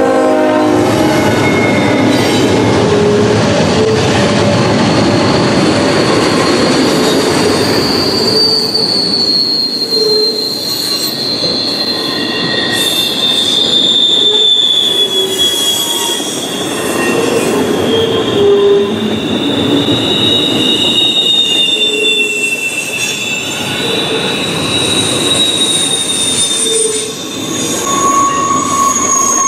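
Freight train passing close by: a locomotive goes by first, then double-stack container well cars roll past with a steady rumble and rattle of wheels on rail. From about a third of the way in, long high-pitched wheel squeals sound and slowly slide in pitch.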